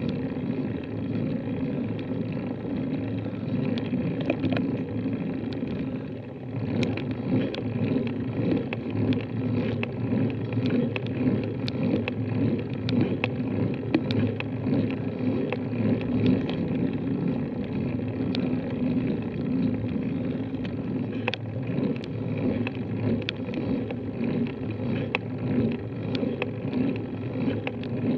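Steady low rumble of a bicycle's tyres and drivetrain, picked up through a bike-mounted camera on a slow, steep climb, with scattered light ticks.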